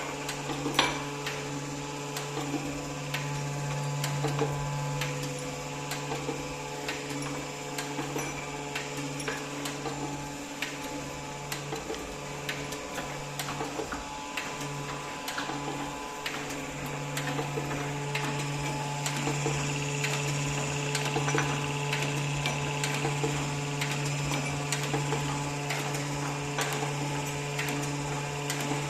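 TOS BRH 20 machine running with its repaired hydraulics: a steady motor-and-pump hum with several higher steady tones, wavering a little about halfway through, over frequent small ticks and clicks.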